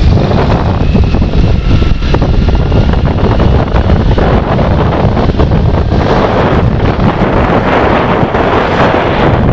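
Loud wind buffeting the microphone over the steady rumble of a moving vehicle.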